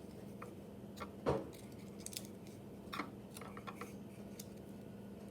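Scattered light taps and clicks of a pencil and small crafting pieces being handled on cardboard, one slightly louder knock about a second in and a quick run of small clicks past the middle.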